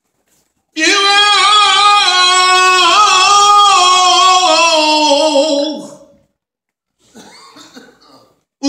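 A man chanting through a microphone and hall loudspeakers in one long drawn-out phrase of held, slowly sliding notes. The phrase breaks off about six seconds in, and after a short pause the next one begins at the very end.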